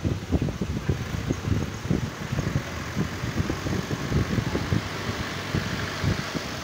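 Farm tractor's diesel engine running at low speed as the tractor drives and turns, with a rapid low pulsing.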